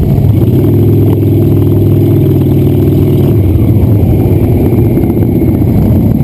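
Cruiser motorcycle engines running in slow street traffic: a steady low drone for about the first three seconds, then a rougher, more uneven engine sound.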